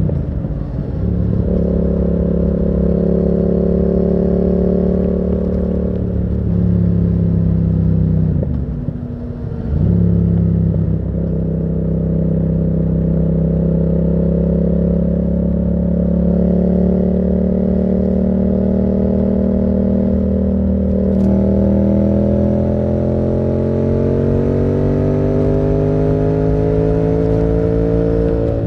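Yamaha MT-07's parallel-twin engine through a Termignoni exhaust, under way at a fairly steady engine speed. The note dips briefly as the throttle closes, about a second in and again around nine seconds, and over the last several seconds the pitch climbs slowly as it accelerates.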